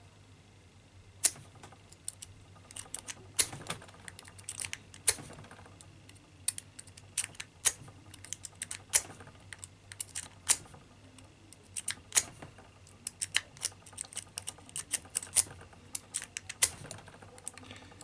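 A lock pick being zipped out across the four pin tumblers of a cheap padlock, over and over: many sharp, irregular clicks and snaps, in small clusters with short pauses as the tension is reset.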